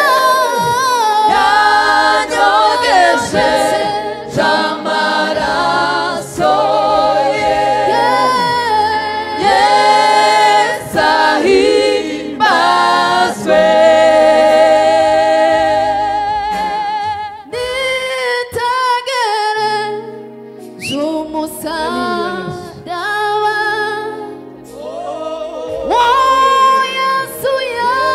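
A choir singing a gospel song, the voices holding long notes, some with vibrato.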